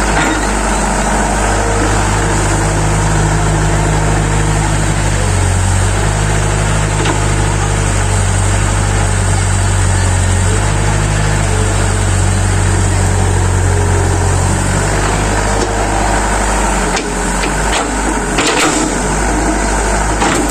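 Excavator's diesel engine running steadily, its note shifting up and down in steps as the hydraulics take load while digging. A few short knocks come near the end.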